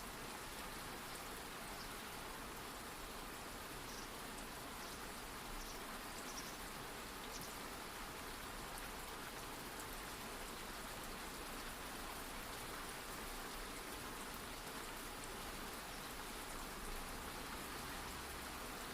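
Rain ambience: steady light rain falling, an even patter of drops.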